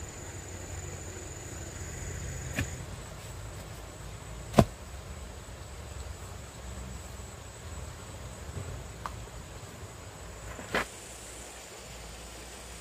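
Three sharp knocks, the middle one much louder, about four and a half seconds in, over a steady low outdoor rumble. A thin, high, steady insect buzz stops after about two and a half seconds.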